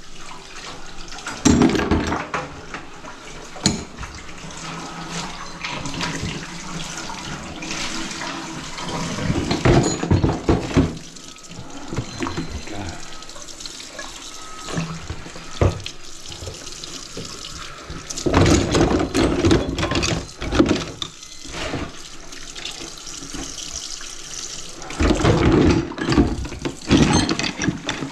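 Water running from a kitchen faucet into the sink, with louder surges of splashing several times and a few sharp knocks.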